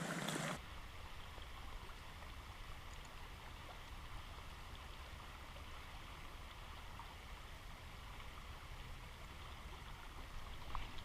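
River water running past, a steady, even rush of flowing water.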